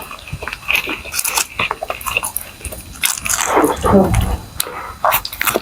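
A person chewing a soft, jelly-filled mango snack close to the microphone: irregular wet mouth clicks and smacks, with a short low vocal sound partway through.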